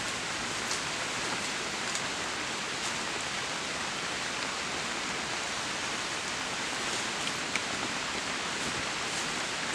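Steady, even rushing hiss of outdoor background noise, with a few faint light ticks in the first three seconds.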